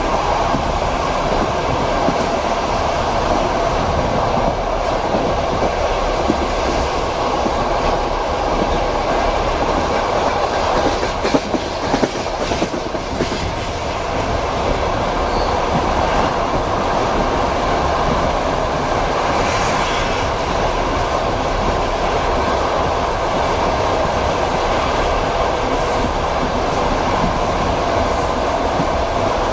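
Train wheels clattering over rail joints, with the steady rumble of a moving passenger car heard from inside the compartment. A few sharper knocks come about halfway through.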